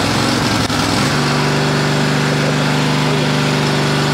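Honda HF2417 ride-on mower's V-twin engine running steadily on choke just after a successful start; its note settles and steadies about a second in.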